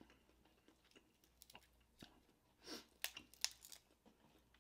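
Faint crackling and clicking of a cooked crab leg's shell being broken and the meat pulled out by hand, with soft chewing; a quick cluster of sharper cracks comes about three seconds in.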